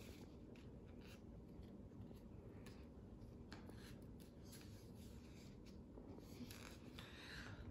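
Faint rustling and crinkling of a paper sticker sheet as small stickers are peeled off their backing and pressed onto construction paper, with scattered soft ticks.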